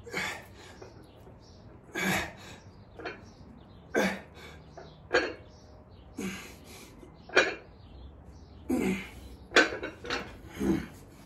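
A man's short, forceful exhales, about one every second or two, in rhythm with reps of seated dumbbell shoulder presses.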